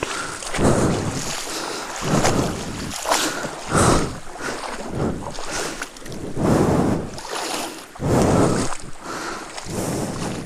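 Feet wading through a shallow, flowing stream, a splashing swish about every second, over rushing water.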